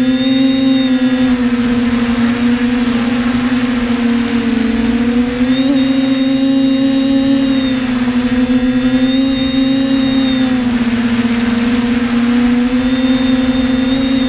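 A TBS Discovery Pro quadcopter's electric motors and propellers humming steadily, heard through its onboard camera. The pitch sags and rises slightly every few seconds as the throttle shifts.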